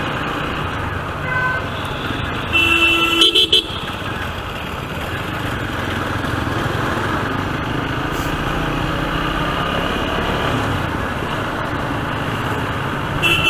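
Steady city traffic and engine noise heard from a moving motorcycle, with a vehicle horn honking a few quick toots about three seconds in and another horn sounding near the end.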